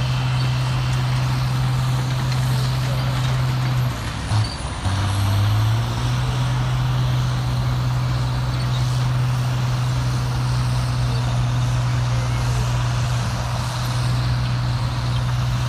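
Vintage tracked face-shovel excavator's engine running with a steady drone; its note drops and wavers briefly about four seconds in before settling back to the same steady pitch.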